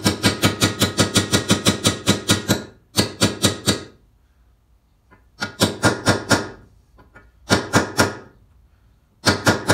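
Hand hammer striking a steel driver rod to drive a new bearing down into an outboard lower-unit gearcase until it seats. The blows are quick and metallic with a ringing tone, about five a second, in one long run and then four shorter bursts.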